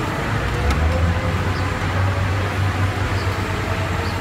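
Steady low rumble of road traffic and nearby car engines.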